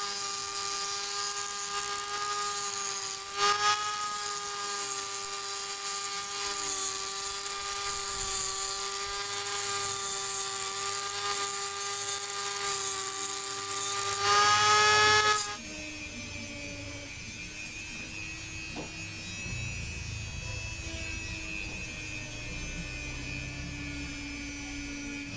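Mini rotary grinder on a flexible shaft, its small cutoff disc grinding against a rusty metal rod: a steady high whine with a harsh grinding hiss, briefly catching about three and a half seconds in. About fifteen seconds in the grinding stops abruptly, leaving a quieter, lower steady hum.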